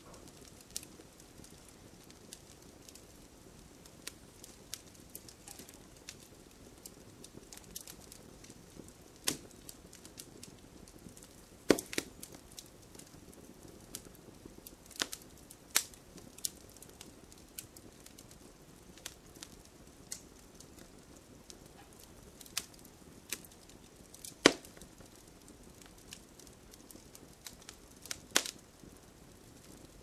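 Crackling fire: irregular sharp pops and snaps over a low steady hiss, a few of them much louder than the rest.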